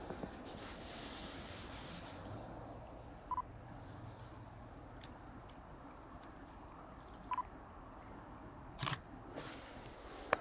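Nikon D5300 DSLR giving two short focus-confirmation beeps about four seconds apart, then a sharp shutter click about nine seconds in.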